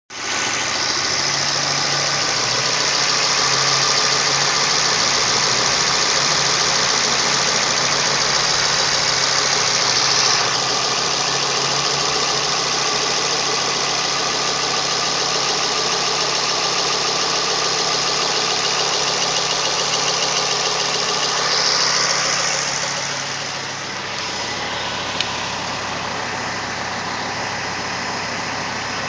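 Ford Focus ST engine running, with a steady high-pitched whine over the engine sound. The sound changes about a third of the way through, then brightens and drops a little in level about three-quarters through.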